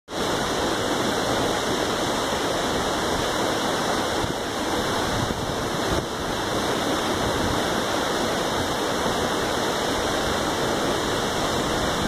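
Tall waterfall plunging down a cliff face, close by: a loud, steady rush of falling water.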